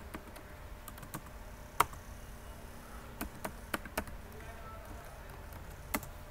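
Computer keyboard keys clicking as a password is typed: separate keystrokes at irregular gaps, the sharpest about two seconds in, over a faint low hum.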